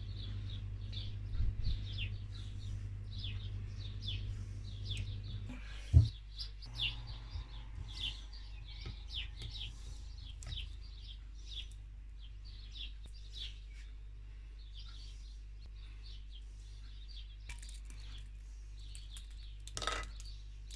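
Small birds chirping continuously, several quick chirps a second, over a steady low hum. A single sharp knock about six seconds in, and a brief clatter near the end as bread croutons drop onto the plate.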